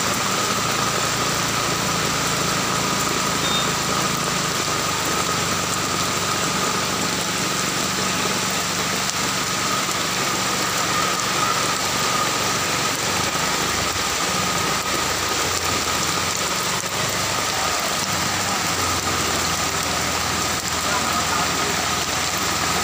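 Heavy rain pouring onto a flooded street: a dense, steady hiss of drops splashing into the running floodwater.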